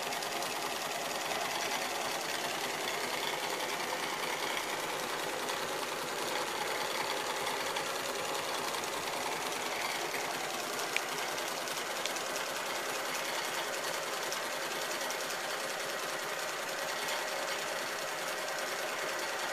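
Hornby 3½-inch gauge live-steam Stephenson's Rocket model locomotive running: a fast, even mechanical clatter over a steady hiss.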